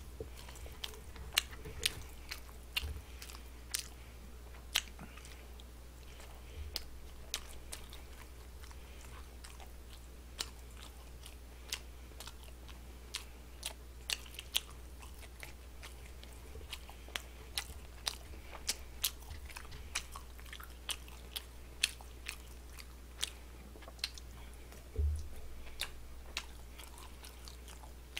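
A person chewing and biting food close to the microphone: many irregular sharp mouth clicks over a steady low hum, with one dull bump near the end.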